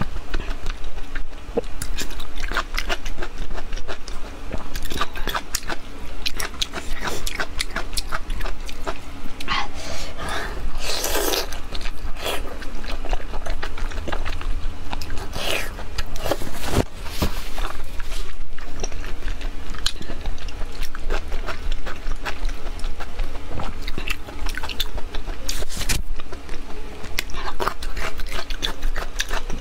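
Close-miked chewing of soft, sticky braised pork intestines: a steady run of wet smacking clicks, with a few longer slurping sounds, the longest about eleven seconds in. A low hum sits underneath.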